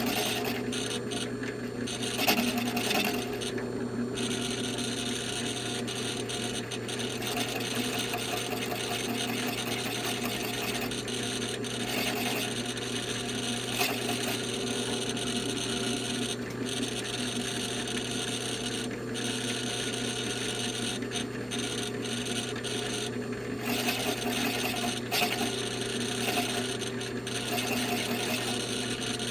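A power drill runs steadily with a counterbore cutter scraping into the stock, opening a 3/8-inch hole to 9/16 inch. The cutting noise eases briefly now and then and sits over a steady motor hum.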